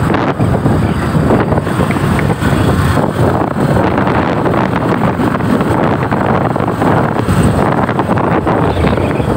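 Steady rumble of wind buffeting the microphone, mixed with the running noise of a moving motor tricycle (motorcycle with sidecar) at road speed.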